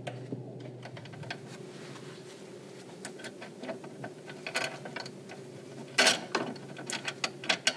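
Small metallic clicks and clinks of hand and tool working the battery clamp and terminal on an old tractor as the battery is unfastened, over a faint steady hum. The sharpest clack comes about six seconds in, followed by a quicker run of clicks near the end.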